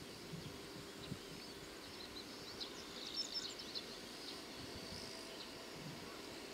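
Faint open-air ambience: a steady high hiss, with a bird chirping in a short flurry about halfway through.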